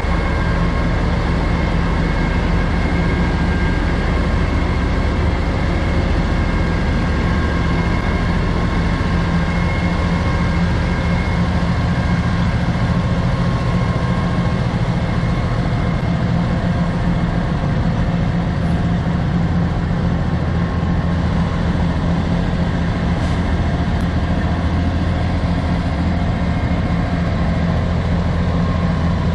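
A semi truck's diesel engine idling steadily: a low, even rumble with a faint steady whine above it.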